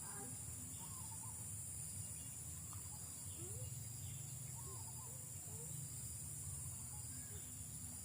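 Rural outdoor ambience: a steady high insect drone, with short rising and falling bird chirps every second or so over a low steady rumble.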